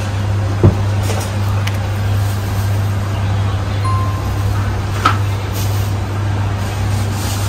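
Steady low hum with a few sharp clicks, the loudest about two-thirds of a second in and another about five seconds in.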